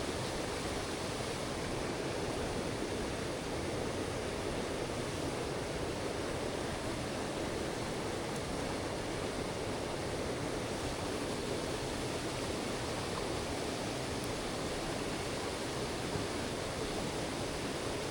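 Mountain stream water rushing over rocks: a steady, even rush with no breaks.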